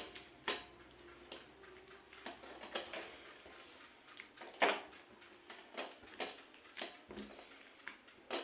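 Dishes and food being handled: scattered light clicks and clinks, about a dozen irregular taps.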